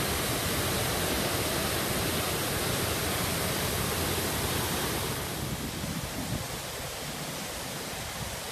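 Snowmelt mountain creek rushing and splashing over rocks: a steady rush of water that eases slightly about five seconds in.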